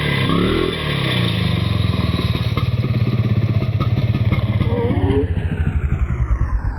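A small engine running steadily at low revs, with a rapid even pulsing beat.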